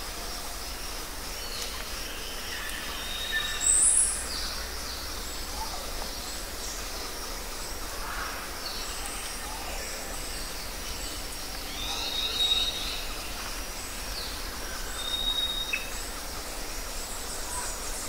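Outdoor ambience: a steady hiss with scattered wild bird calls over it, loudest a sharp high chirp about four seconds in, then thin, level whistled notes around the middle and again a few seconds later.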